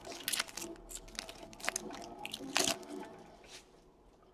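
Foil wrapper of a trading-card pack crinkling as it is torn open and pulled off the cards, in scattered sharp crackles that stop about three and a half seconds in.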